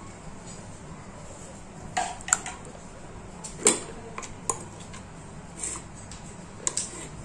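A metal spoon clinking and scraping against stainless steel bowls while ginger-garlic paste is scooped out and added to chicken, with about six sharp clinks, the loudest near the middle.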